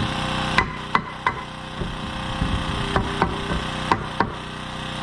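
Hammer blows on wood framing, about seven sharp strikes in two irregular groups, over a steady low mechanical hum.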